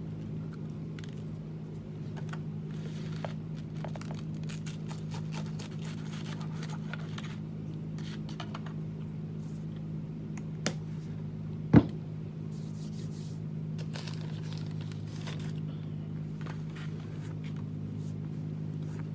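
Steady low machine hum in a small room, with light rustling and handling noises from someone eating at a table. A sharp knock about twelve seconds in, like an object set down hard, is the loudest sound.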